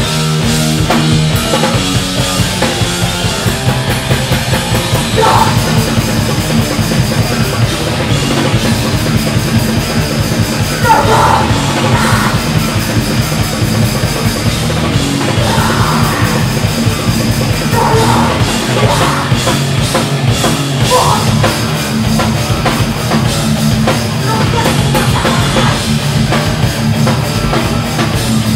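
A heavy rock band playing loud and fast on stage: electric guitars, bass and a drum kit played in a dense, unbroken wall of sound. Shouted vocals come in several times over it.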